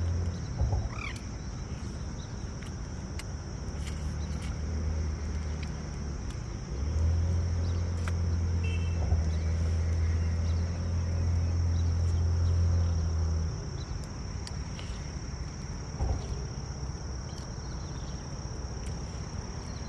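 Steady high-pitched drone of insects, with a low hum that swells and fades a few times and dies away about two-thirds through. Light clicks of spoons on plastic plates now and then.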